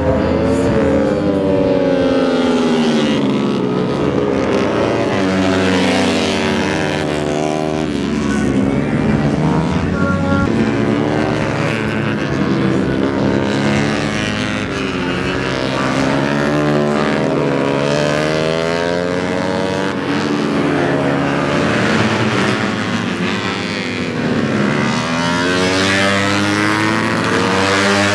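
Several Yamaha racing motorcycles at full throttle on a circuit, their engines revving up and down through the gears as they pass, the pitches of different bikes overlapping and rising and falling continuously.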